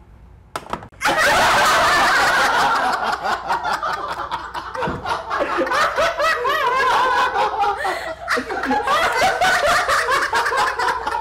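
A couple of sharp clicks, then about a second in a sudden outburst of loud laughter that carries on throughout.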